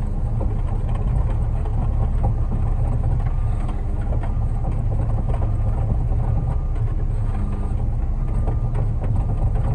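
Concrete mixer truck's diesel engine running steadily while the drum turns, discharging the last of the load.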